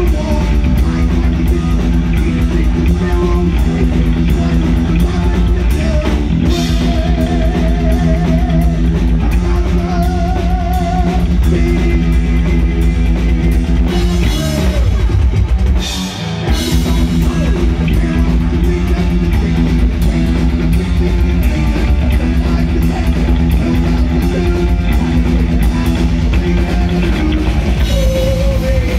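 Heavy metal band playing live: distorted electric guitars, bass and drum kit in an instrumental passage, with a lead guitar playing wavering, bent notes. The band drops out for an instant about halfway through, then comes back in.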